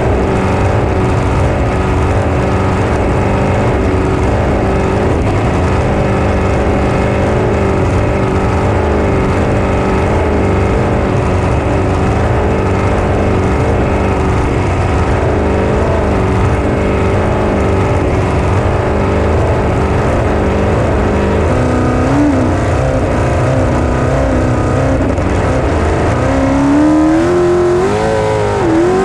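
Pro 42 flat-bottom race boat engine running flat out at a steady high pitch, with wind and water rushing. Near the end the engine note dips and climbs a few times.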